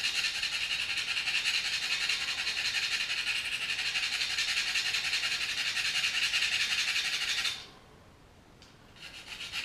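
Steel knife blade rubbed on a paste-coated honing stone, giving a steady high scraping that stops about seven and a half seconds in and starts again near the end. The edge's burr and chipping are being worn away.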